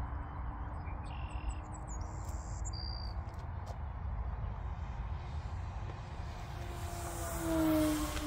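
Electric motor and propeller of an E-flite Hawker Hurricane RC warbird flying at about half throttle: a faint steady hum that swells as the plane passes close near the end, its pitch dropping as it goes by. A few short bird chirps early on.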